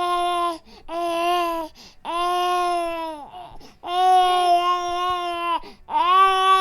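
Infant crying: a run of about five wails, each held for a second or so with short breaths between, the longest in the middle.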